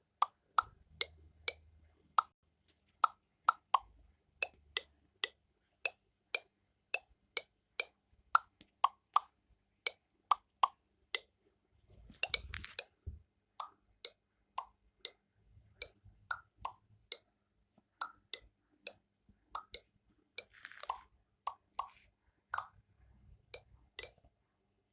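A string of short pop sound effects, each a quick plop with a brief pitched ring, coming irregularly about two to three times a second, with a noisier burst about halfway through and another near two-thirds through.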